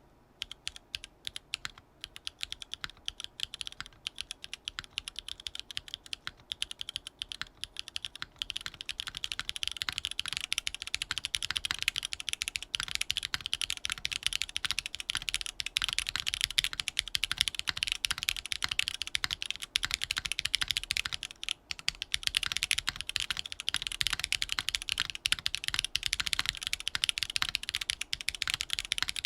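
Typing on a TGR Jane V2 custom mechanical keyboard with a carbon fibre plate, o-ringed Cherry MX Black linear switches and GMK keycaps. Keystrokes start slow and scattered, then become fast continuous typing, with a brief pause about three-quarters of the way through.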